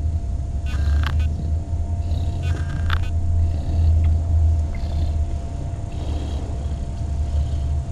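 A cat purring close to the microphone, a low rumble that swells and eases about once a second with its breathing, with a few faint clicks.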